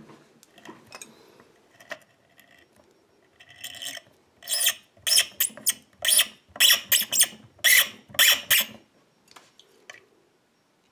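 A hand tap in a tap wrench cutting threads into an emptied pin chamber of a euro lock cylinder, metal scraping on metal. After a few seconds of quieter handling, a quick run of about a dozen scraping strokes, roughly two a second, comes as the tap is turned, then stops near the end.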